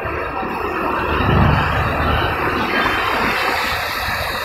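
Road traffic on a wet street: engines running and tyres on wet asphalt, with a vehicle passing close about a second and a half in.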